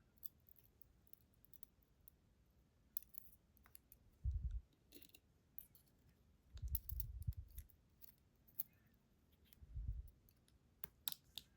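Light metallic clicks and small taps as pins and springs are loaded into one pin chamber of an ASSA Guideline lock during reassembly. A few soft low thumps of handling come about four, seven and ten seconds in.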